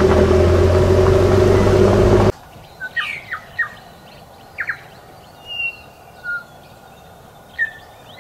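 A quad bike's engine running steadily, stopping abruptly about two seconds in. Then several birds chirp and call in short whistled notes, some sliding downward.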